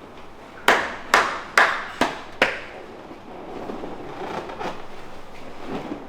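A masseuse's hands slapping a customer's back five times in quick, even succession, about two strikes a second, each a sharp smack. Quieter rubbing of hands on skin and clothing follows.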